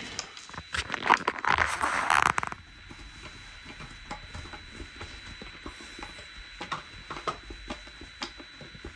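Handling noise: a louder scraping rustle from about one to two and a half seconds in, then scattered soft clicks and taps.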